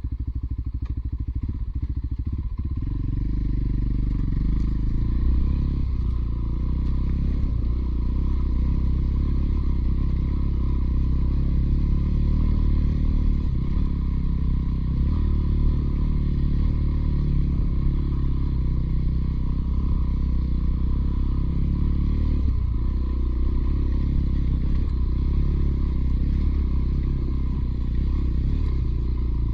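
Motorcycle engine running under way, a steady low drone that grows louder about three seconds in.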